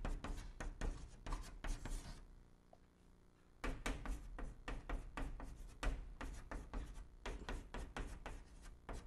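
Chalk tapping and scratching on a blackboard as characters are written stroke by stroke in quick short strokes, with a pause of about a second and a half about two seconds in.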